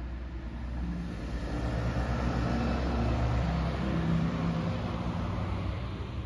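A car driving past on the road, its engine and tyre noise swelling to a peak around the middle and then fading away.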